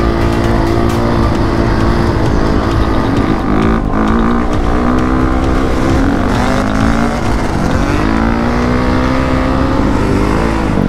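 Honda CRF450RX single-cylinder four-stroke dirt bike engine under way at speed, its pitch climbing through the gears and dropping sharply at shifts about four and eight seconds in.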